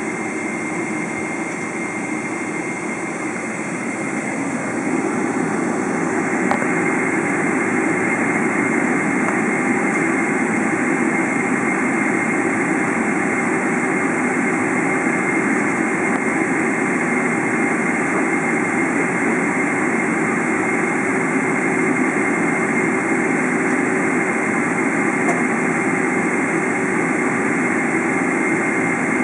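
Boeing 777-300 jet engines running at low taxi power, heard from inside the passenger cabin: a steady rush with a thin, steady whine. It grows a little louder about five seconds in.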